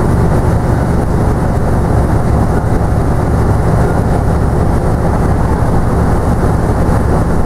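Leyland Titan PD2 double-decker bus under way, heard from the upper deck: its six-cylinder diesel engine and road and body noise make a steady low drone with no change in speed.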